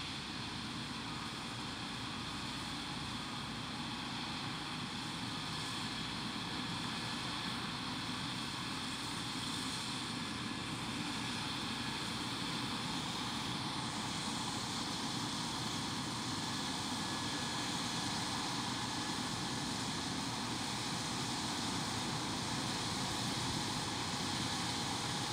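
Combine harvester running steadily in the field, its engine and threshing machinery making a continuous drone that slowly grows louder.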